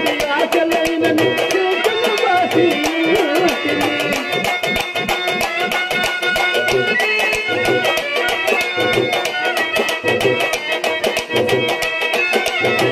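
Live accompaniment music: hand drums of the tabla kind play a fast, dense rhythm with deep strokes, under a wavering melody line.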